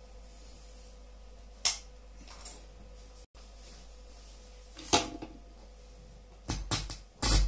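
A few scattered clicks and knocks of small parts and tools being handled on a workbench: single taps about two and five seconds in, then a quick cluster near the end that holds the loudest knock.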